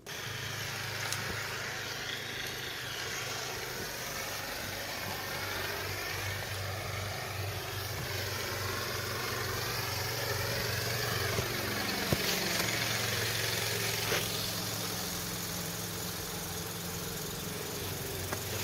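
An engine running steadily with a low hum, with a rushing hiss over it and a couple of sharp clicks about two-thirds of the way through.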